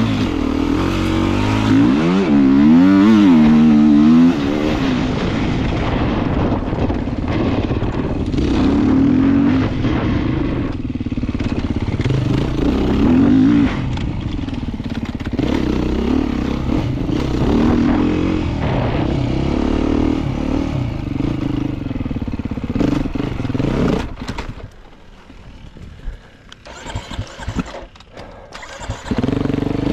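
Beta 390 enduro motorcycle's single-cylinder four-stroke engine being ridden, its pitch rising and falling with the throttle. About five seconds before the end the engine sound drops away sharply for a few seconds, with scattered knocks, then picks up again.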